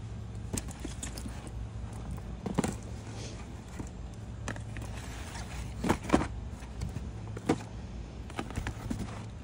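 Cardboard jigsaw puzzle boxes being shuffled and knocked against a cardboard display shelf, with several sharp knocks, over a steady low hum.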